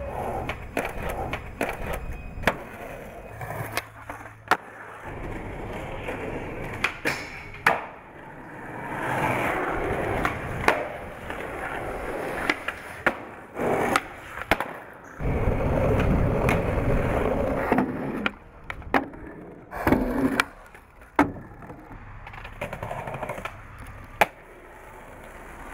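Skateboard on concrete and pavement: wheels rolling with a rumble that swells and fades, broken by many sharp clacks of tail pops, landings and board impacts.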